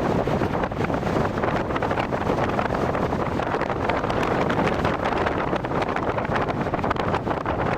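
Strong gusting wind buffeting the microphone: a dense, rumbling rush of noise with crackling pops throughout.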